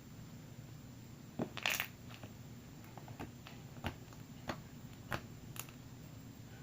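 Pink slime being poked and squished by hand, giving sharp clicky pops: a loud cluster about a second and a half in, then single pops every half second or so.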